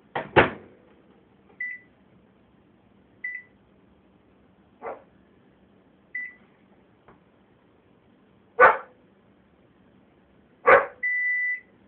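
Microwave oven beeps: a few short single beeps, then a longer beep near the end as the cycle finishes. A faint hum runs underneath, and several loud, short noises break in between the beeps.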